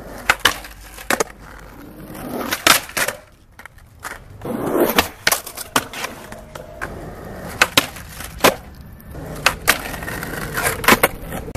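Skateboard wheels rolling on concrete, broken by many sharp clacks of the board popping and landing.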